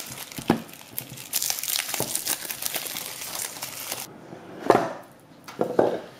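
Cellophane shrink-wrap crinkling as it is pulled off a cardboard product box, for about four seconds. Then come two short sounds as the box is opened.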